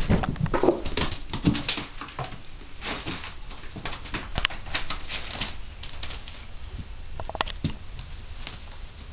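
Two kittens wrestling: irregular scuffling, patting and light thumps of paws and bodies. The scuffles come thickest in the first couple of seconds and again around the middle, then thin out to a few knocks.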